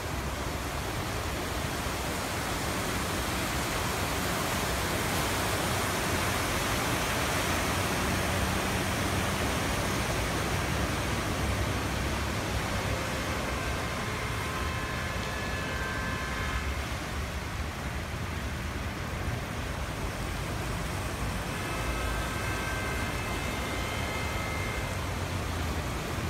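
Cars wading through deep floodwater: a steady rush and splash of water with a low rumble underneath, swelling somewhat in the first dozen seconds. Faint high tones come and go twice in the second half.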